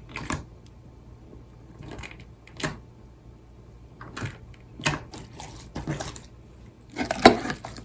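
Slime being squeezed and pressed by hand: short, separate bursts of wet clicking and crackling, the loudest cluster about seven seconds in.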